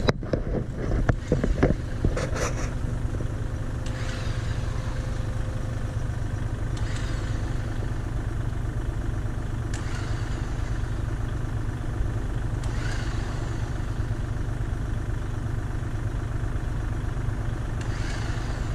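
Heavy equipment engine running steadily at a constant speed, with a few faint knocks over it.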